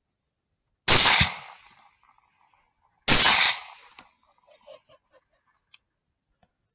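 Two rifle shots about two seconds apart, each sharp report trailing off for about half a second.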